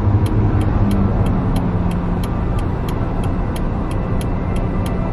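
Inside a moving car: a steady engine and road hum, with an even, fast ticking of about three to four clicks a second from the turn-signal indicator as the car comes to a turn-off.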